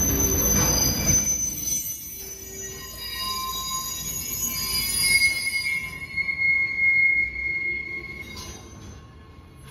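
A Stadler GTW diesel light-rail train passing close on a sharp curve: a heavy rumble as the cars go by for about the first second, then wheel squeal from the curve, several steady high-pitched tones that ring on and fade near the end as the train moves away.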